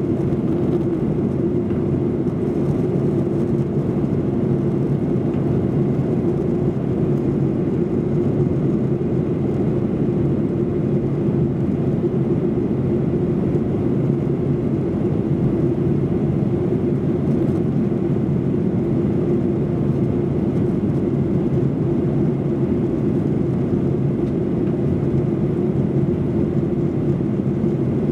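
Steady cabin noise inside a Boeing 737-800 airliner descending toward landing: its CFM56 jet engines and the airflow along the fuselage make an even rush with a steady low hum, heard from a rear seat.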